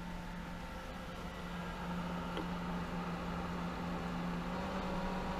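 Hayward Super Pump VS (SP2603VSP) variable-speed pool pump running with a steady hum and water flow, its pitch rising slightly and its level increasing as the motor is stepped up toward 1750 RPM.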